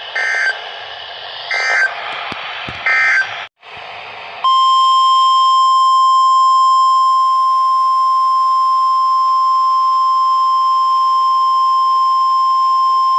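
NOAA Weather Radio Emergency Alert System signal: three short screeching bursts of SAME header data about a second and a half apart, then a brief dropout and the steady, single-pitch 1050 Hz warning alarm tone, held for about nine seconds. It marks the start of a new warning broadcast.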